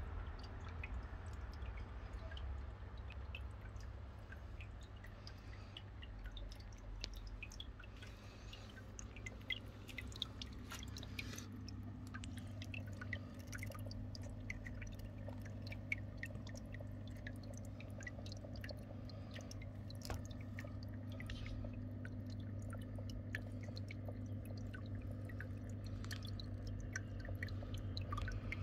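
Small stream of water trickling and dripping over moss and rock in a paludarium, a scatter of many tiny drips over a steady low hum.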